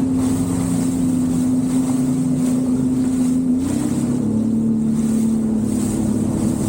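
Jet ski engine running at cruising speed, a steady hum over rushing water and wind. About three and a half seconds in the pitch lifts briefly, then settles slightly lower.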